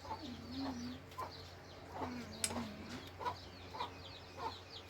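Chickens clucking, with many short high chirps repeating and two longer low calls; a single sharp click about two and a half seconds in.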